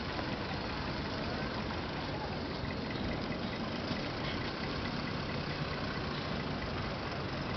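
Engine of a small decorated cab-over truck running steadily at low speed as it creeps past.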